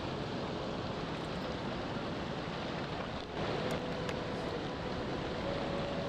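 Steady rushing noise of rough, churning water with wind, with a faint thin tone in the background; the sound dips briefly about three seconds in.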